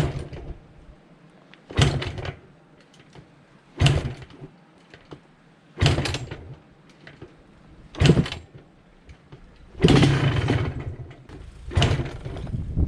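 1980 Honda CR250 Elsinore two-stroke single being kick-started: seven kicks about two seconds apart, each turning the engine over briefly without it catching. The kick near ten seconds in lasts a little longer than the others.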